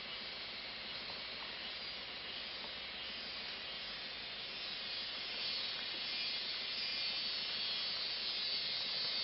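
A steady high hiss that grows louder about five seconds in, with a few faint clicks.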